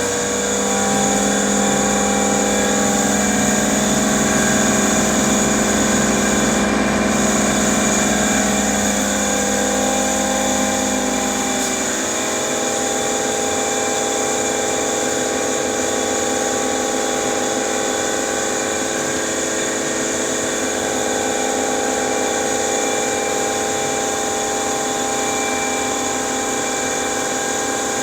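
Ceiling-mounted ventilation fan, about 15 years old, running with a steady drone ("gō") and several whining tones from its worn motor bearings. Its low rumble drops away about twelve seconds in, and the whining tones carry on.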